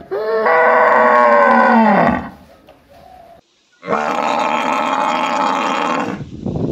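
Two long bovine calls. First a cow moos once for about two seconds, its pitch dropping as it ends. A second or so later a young water buffalo gives a rougher, hoarser call of similar length.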